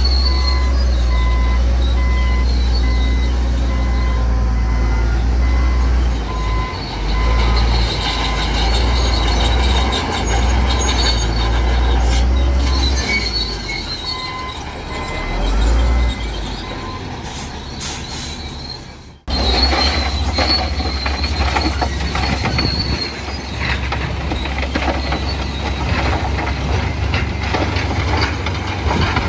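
Bulldozer at work: its diesel engine runs under load while the steel tracks squeal and clank. The sound breaks off sharply about two-thirds of the way through, then comes back with more rattling clatter.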